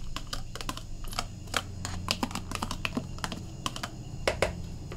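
A metal spoon tapping and scraping against a plastic container while knocking chopped parsley out into a bowl: a run of quick, irregular clicks.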